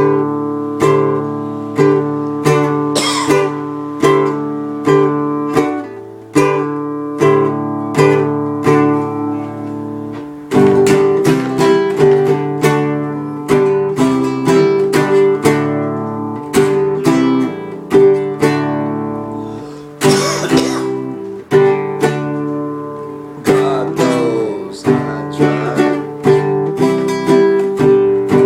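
Acoustic guitar strumming chords, roughly one strum a second, each left to ring out, changing to a different chord pattern about a third of the way in.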